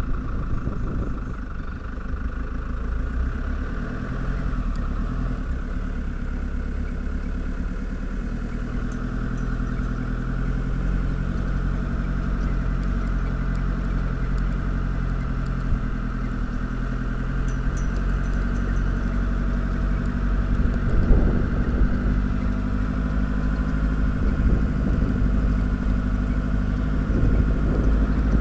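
Open-sided safari vehicle's engine running steadily as it drives slowly along a grassy track, with a constant low rumble and a brief swell about two-thirds of the way through.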